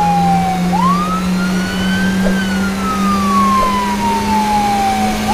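Police car siren wailing: one slow rise, a long fall, then rising again near the end, over a steady low hum.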